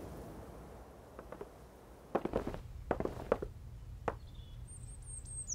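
Footsteps: a few separate, unevenly spaced steps from about two seconds in. Faint high bird chirps come in near the end.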